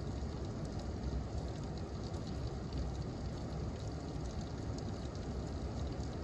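Steady rain falling during a thunderstorm, an even hiss with scattered faint drop ticks.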